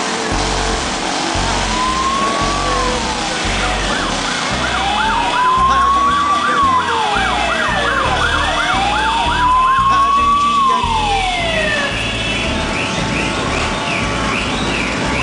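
Sirens over a packed crowd of motorcycles. One siren rises and falls slowly in a wail, about every four seconds. A second siren warbles fast in a yelp about a third of the way in, and again at a higher pitch near the end. Underneath is a low rumble from the many motorcycle engines idling.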